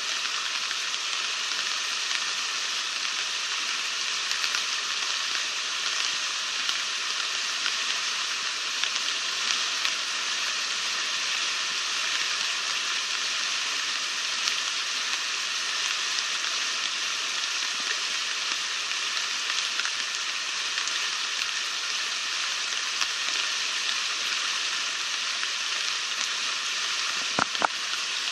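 Floodwater rushing and churning through a swollen creek, a steady rushing noise. Two brief knocks about a second before the end.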